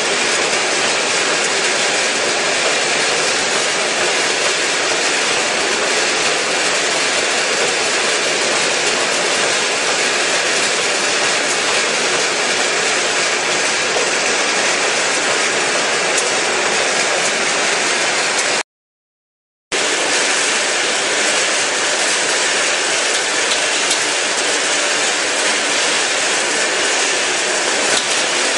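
Corn puff snack processing machinery running, including a rotating drum tumbling puffs: a loud, steady, even mechanical noise with a hissy high end. The sound cuts out completely for about a second roughly two-thirds of the way through.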